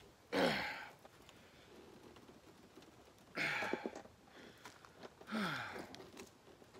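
A person's voice making three short, breathy sounds, each falling in pitch: about half a second in, at about three and a half seconds, and at about five and a half seconds.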